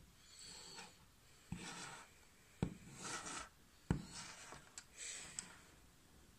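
A plastic toy pony is walked by hand across a wooden surface: three light knocks of its hooves set down about a second apart, with scraping and rubbing between as it slides. It is faint.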